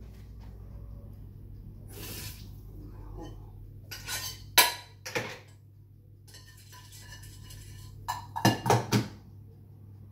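Kitchen clatter of a metal saucepan and whisk being handled and set down out of sight: a few separate bursts of clinks and knocks, the loudest near the end, over a steady low hum.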